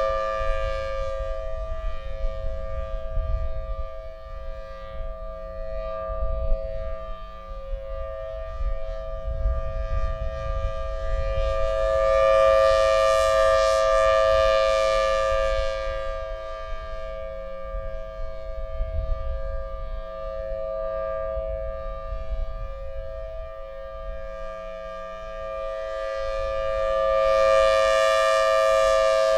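Federal Signal Thunderbolt 1003 rotating warning siren sounding its steady Alert tone, one unchanging pitch that swells loud twice, about 15 seconds apart, as the rotating horn sweeps past and fades between. Wind rumbles on the microphone underneath.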